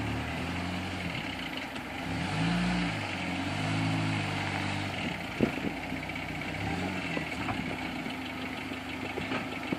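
Off-road vehicle's engine running at low speed, its pitch rising and falling several times as the throttle is worked, with one sharp knock about halfway through.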